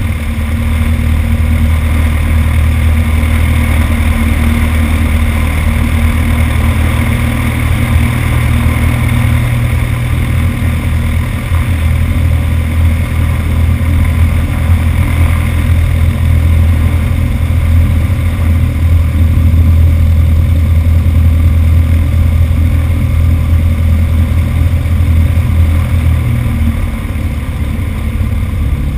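Piston engine and propeller of a single-engine light aircraft running steadily at low power while taxiing.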